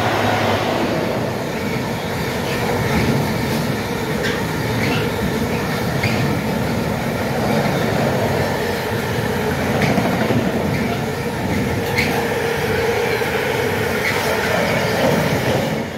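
Container freight train headed by two electric locomotives passing at speed on the near track: a steady rumble of wheels on rail and wagons running by, with scattered sharp clicks as wheels cross rail joints.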